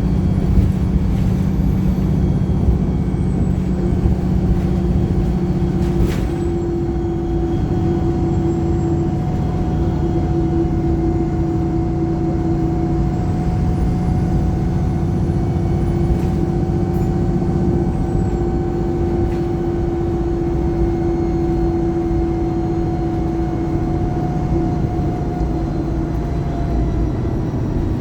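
Single-deck bus engine and driveline (Arriva Wright Pulsar 1453) under way, holding a steady droning pitch for a long stretch, with a single sharp click about six seconds in. The pitch sags slightly near the end as the revs ease.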